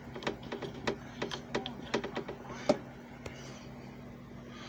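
A run of irregular light clicks and taps, several a second, over a faint steady hum; the clicks stop about three seconds in, leaving the hum.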